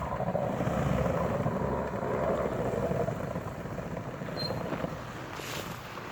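Off-road vehicle's engine running hard under load on a hill climb, louder for the first three seconds and then easing off.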